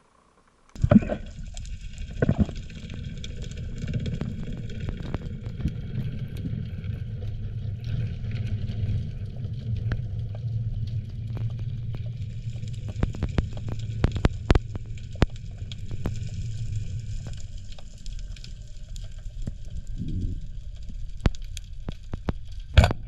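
Underwater ambience heard through the diver's camera housing: a steady low water rumble with scattered clicks and crackles, starting about a second in. Near the end comes a single sharp crack, the loudest sound, as the speargun fires its shaft.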